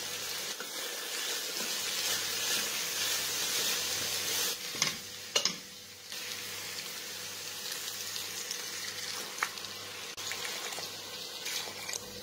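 Diced pumpkin and other vegetables sizzling as they sauté in a pot, stirred with a spoon that knocks sharply against the pot twice about five seconds in. The sizzle is softer in the second half.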